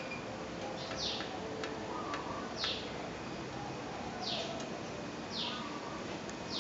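A bird chirping over and over, short falling calls about every second and a half, over the steady whir of a 1965 Mitsubishi 36-inch ceiling fan running.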